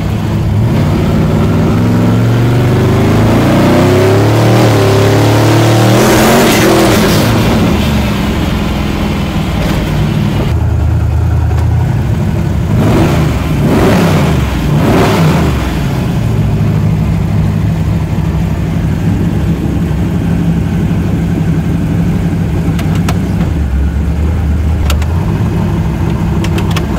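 Twin-turbo 522 cubic-inch big-block Chevy V8 heard from inside the car: it pulls with rising pitch for about six seconds, with a burst of hiss at the top, then drops back. A few quick swings in engine pitch follow near the middle, and the engine then settles into a steady idle.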